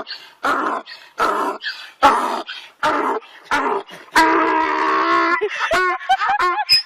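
A dog vocalising: a run of short barks, then one long held howl, then quick rising-and-falling yips near the end.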